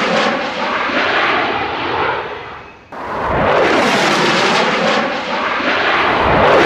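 Jet fighter roar sweeping past, its tone shifting as it goes by; the first pass fades away and stops abruptly about three seconds in, and a second pass starts at once at full strength.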